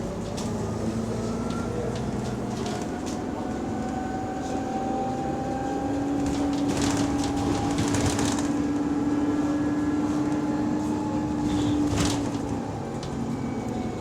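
Bus engine and drivetrain heard from on board, running with an exhaust leak. A steady whine holds for several seconds in the middle, over a continuous rumble with scattered rattles and clicks.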